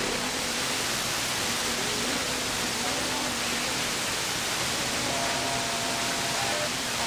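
CB radio receiver hiss with the squelch open on the 11-metre band, with faint steady tones drifting in and out of the noise as weak signals.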